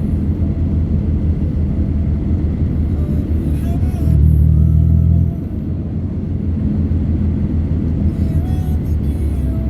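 A vehicle on the move: a steady low rumble of engine and road noise that swells for about a second near the middle.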